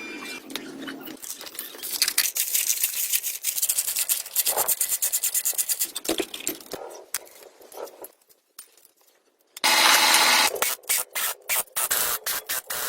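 Hand-held abrasive work: rapid back-and-forth rubbing strokes, stopping briefly past the middle, then starting again with a loud dense burst followed by more quick strokes.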